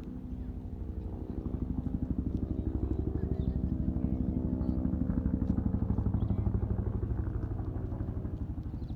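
A motor vehicle's engine running with a fast, even low pulsing, growing louder about a second and a half in and easing again toward the end, where it cuts off abruptly.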